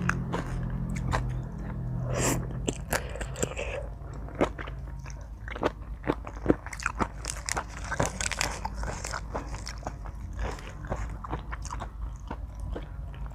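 Close-up mouth sounds of someone chewing and biting crunchy food, seafood papaya salad: many sharp, irregular crunches and wet smacks.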